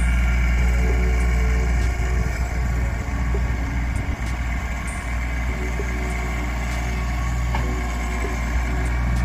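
Compact tractor's diesel engine running steadily with a low hum while the tractor works the cleared ground with its front loader.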